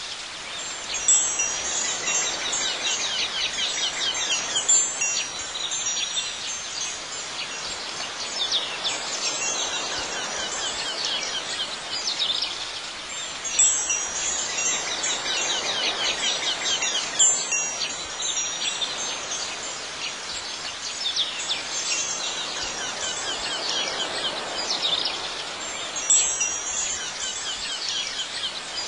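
Wind chimes ringing in a light, continuous jingle of high tones, with brighter clusters of strikes that recur about every twelve seconds as in a repeating loop.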